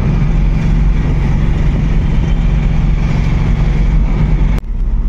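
Engine of a goods delivery vehicle running steadily on the move, a deep hum with a whine above it. About four and a half seconds in a sharp click cuts it off, and a lower, evenly pulsing drone takes over.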